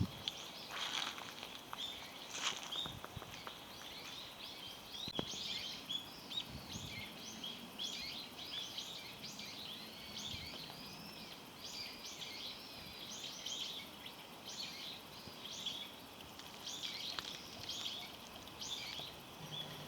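Small birds chirping, many short high calls repeated several times a second, with a few rustling sounds near the start.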